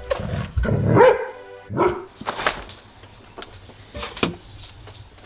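Golden retriever barking several times in short, loud calls, the strongest about a second in.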